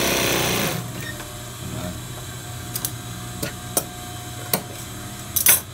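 Industrial sewing machine stitching, stopping about a second in, with a steady hum carrying on underneath. Then scissors snip thread several times, the loudest snips near the end.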